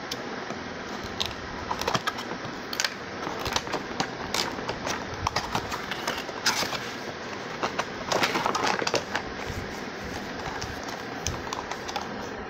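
Cardboard toy box being opened and a plastic toy car lifted out: scattered taps, scrapes and rustles of cardboard and plastic, with a longer rustle about eight seconds in.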